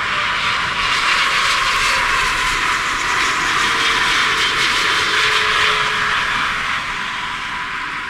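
Boeing 777-300ER airliner passing close by on short final, its two GE90 turbofans a loud jet rush with a faint whine that slowly falls in pitch as it goes by. The noise fades near the end.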